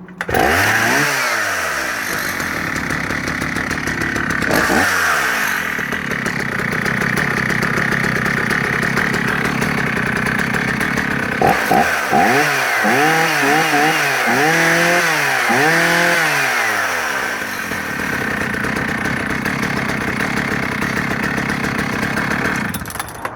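Vintage Husqvarna 480CD 77cc two-stroke chainsaw restarting and running. It catches right away and is revved, then given a quick series of about five throttle blips midway. It settles to a steady run and is shut off just before the end.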